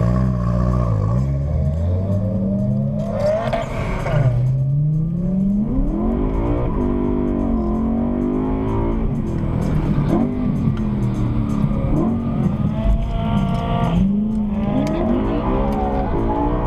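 Car engine accelerating hard through the gears, heard from inside the car: the revs climb and drop back at each shift, several times over.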